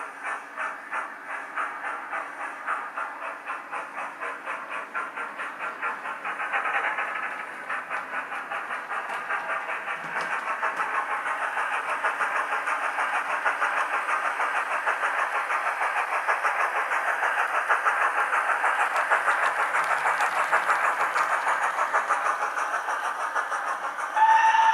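Digital steam-locomotive sound of a BR Standard 9F from a Hornby HM7000 TXS sound decoder, played through the model's small onboard speaker. Rhythmic exhaust chuffs with a hissing edge come at about two a second at first, then quicken and run together as the model gathers speed. Near the end a loud steam whistle sounds.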